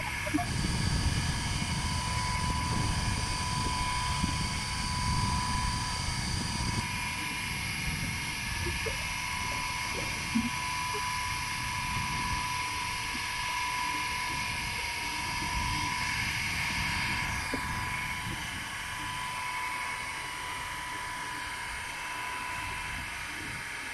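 A steady machine-like drone with several constant high whining tones, over a low rumble that rises and falls like wind on the microphone; a few faint clicks.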